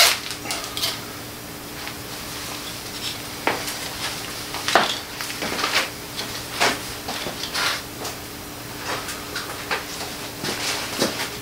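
Irregular metallic clinks and clatter of hard objects being handled and set down, over a faint steady hum.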